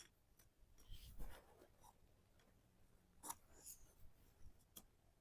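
Faint scraping and a few light clicks of wooden toy train track pieces being handled and fitted together.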